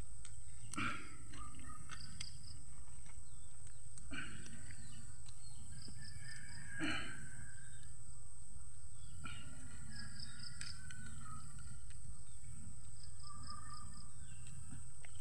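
Rural outdoor ambience: a steady high-pitched insect drone, with small bursts of bird chirps and a few louder short calls about a second, four and seven seconds in.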